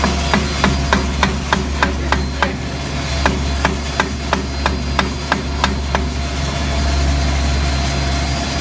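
WFJ super fine grinding mill running steadily with a low hum while milling raw soybeans into powder. A series of sharp, evenly spaced knocks, about three a second, runs through the first six seconds and then stops, leaving only the machine's hum.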